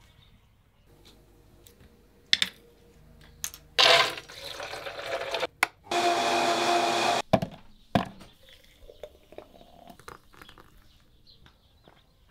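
Countertop blender running in two bursts: a first run of about a second and a half, then after a short pause a steady run of about a second and a half that cuts off suddenly. A few sharp clicks and knocks come just before and just after.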